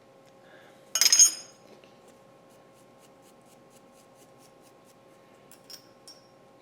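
A sharp metallic clink with a brief high ringing about a second in, as steel tooling or a part is set down or knocked, then a few faint ticks and two small clinks near the end. A faint steady hum of a few fixed tones runs underneath.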